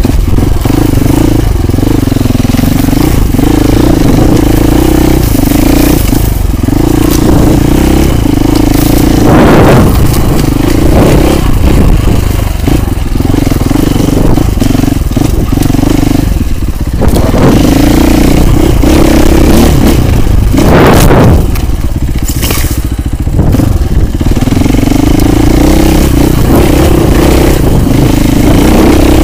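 Husqvarna FE 450 enduro motorcycle's single-cylinder four-stroke engine running under way, heard from a camera mounted on the bike; the engine note drops and picks up again several times as the throttle is eased and opened. A few brief rushing noises cut through, about a third of the way in and twice more past the middle.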